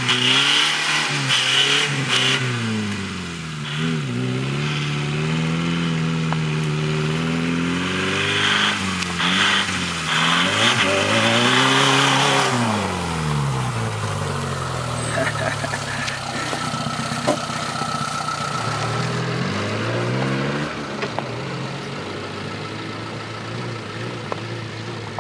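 Small 4x4 off-roader's engine revving up and down again and again as it spins its wheels on snow, with a loud hiss of tyres throwing snow in the middle stretch as it passes close; the engine sound is quieter near the end.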